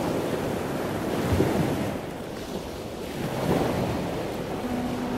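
Ocean surf washing onto a beach, surging and easing, with a quieter spell midway. Near the end, a soft held note of music begins underneath.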